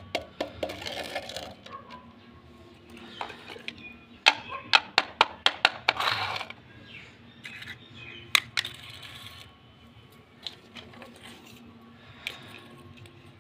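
Small hard-plastic toy kitchen pieces being set down and knocked together on a hard stone floor: sharp clicks, with a quick run of about half a dozen around the middle and a few single clicks later on.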